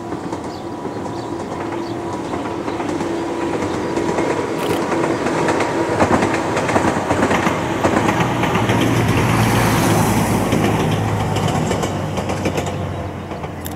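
Ohmi Railway 100-series two-car electric train (set 101F) passing, its wheels clattering over the rail joints. The running noise builds to its loudest about ten seconds in, then begins to fade.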